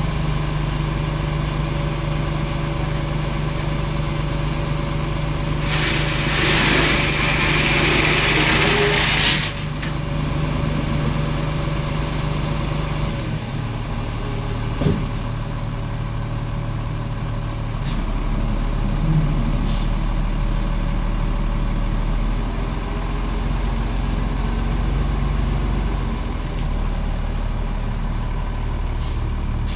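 Rollback tow truck's diesel engine running steadily as the truck sits and then pulls away, with a long hiss of air from its brakes lasting about three seconds, about six seconds in.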